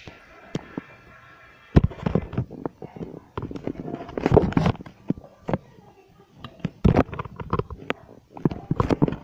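Handling noise from a handheld phone camera: irregular knocks, taps and rubbing as it is moved around, with a few louder clusters of knocks midway and near the end.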